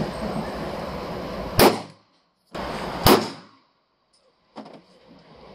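Two pistol shots about a second and a half apart, each a sharp crack with a short echo off the hard walls of an indoor range.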